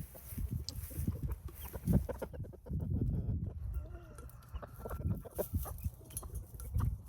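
Hens clucking, with a few short calls in the middle, over irregular low thumps and rustling from close handling or movement.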